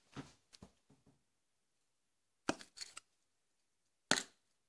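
Plastic cap of a dichlorvos aerosol can knocking against a tiled wall to crush cockroaches. A few light taps come in the first second, a sharp cluster of knocks about two and a half seconds in, and a single loud knock near the end.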